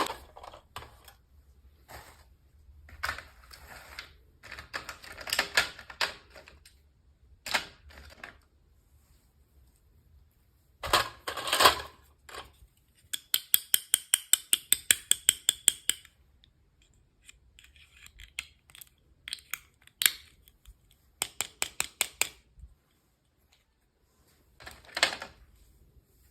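Hands unboxing toy miniatures: plastic packaging crinkles and rustles in short bursts, with scattered clicks. In the middle comes a quick, even run of about twenty ticks, a few each second.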